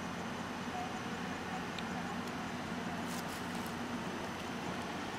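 Diesel-electric locomotive engine running at low throttle while moving slowly during switching, a steady distant drone.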